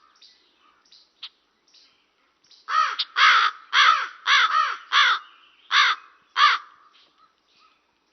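Raven giving a quick series of about seven loud, harsh caws, starting a little under three seconds in, after a few faint clicks.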